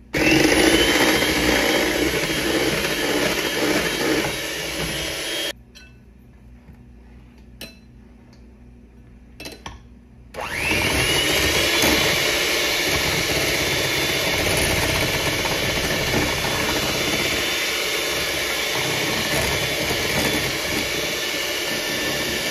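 Black+Decker electric hand mixer running, its beaters whirring through batter in a bowl. It spins up with a rising whine, cuts off after about five seconds, a few light clicks follow, then it spins up again about ten seconds in and runs steadily, beating egg yolks in a glass bowl.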